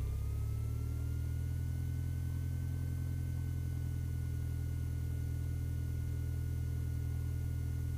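The 1967 Mooney M-20F's fuel-injected Lycoming IO-360 four-cylinder engine running steadily at low power on the ground after the run-up, as a deep, even drone. A faint whine rises in pitch over the first two seconds and then holds.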